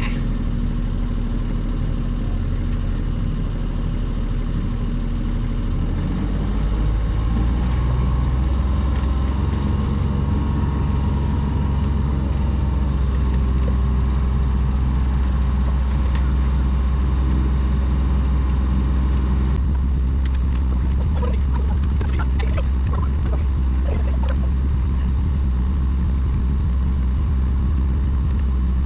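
A sailboat's inboard engine running steadily with a low hum as the boat motors away from the dock, getting louder from about six seconds in.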